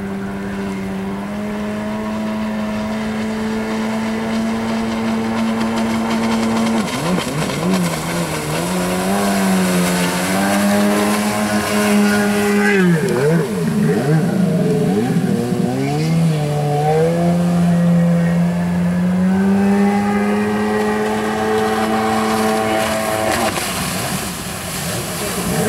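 Jet ski engine running at speed with a steady whine, its pitch swinging up and down repeatedly through the middle and again near the end as the throttle and speed change.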